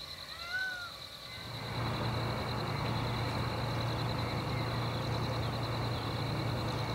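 A steady low rumble like a running engine comes in about a second and a half in and holds. It sits over a steady high insect trill, with two short rising-and-falling whines near the start.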